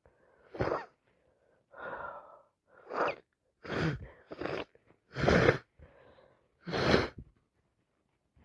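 A woman sneezing again and again in a sneezing fit from a cold and hay fever, with gasping breaths between the sneezes. There are about seven short bursts, and the two loudest come in the second half.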